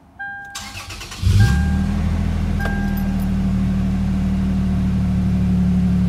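Toyota 4Runner engine starting: a brief crank, then it catches about a second in and settles into a steady fast idle near 2,000 rpm. A dashboard chime dings a few times before and just after it catches.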